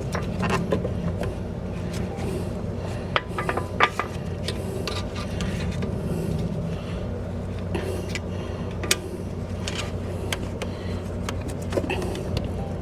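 Scattered clicks and scrapes of hands and tools working the brake pad wear sensor loose from its tabbed plastic housing at the brake caliper, over a steady low hum.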